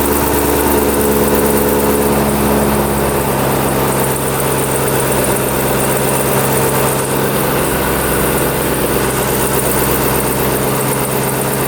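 Camaro ZL1's supercharged LT4 V8, fitted with a Rotofab cold air intake, idling steadily.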